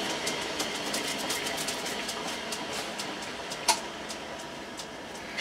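Metal lathe running with its chuck spinning, a steady hum with a regular light ticking about four times a second, slowly fading. One sharper click comes a little before the end.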